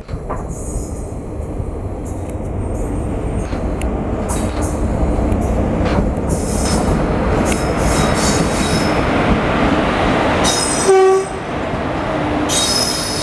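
Indian Railways WAP-4 electric locomotive hauling a passenger train past the platform: the rumble of wheels on rail builds steadily as it comes in. A short horn blast sounds about eleven seconds in, as the locomotive goes by. The coaches follow, with a high wheel squeal near the end.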